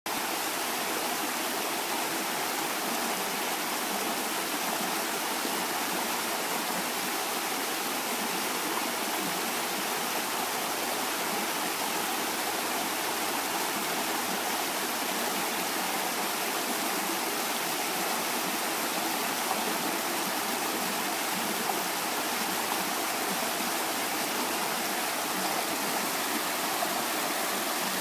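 Small waterfall spilling over mossy rocks into a creek pool: a steady rush of falling water.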